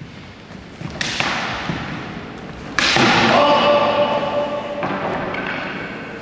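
Two longsword blades clashing in a bout: a sharp hit about a second in, then a louder clash near the middle whose ring is held for about two seconds.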